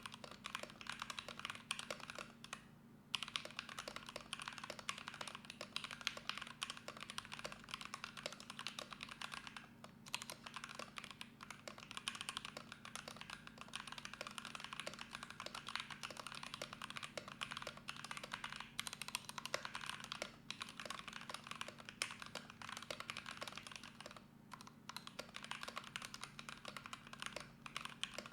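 Fast, continuous typing on a Drop ALT 65% mechanical keyboard with Gateron Yellow Pro linear switches, lubed with 205g0 and filmed, in a case dampened with foam, Poron switch pads, tape mod and polyfill. The typing stops briefly about 3 seconds in, again around 10 seconds, and near the end.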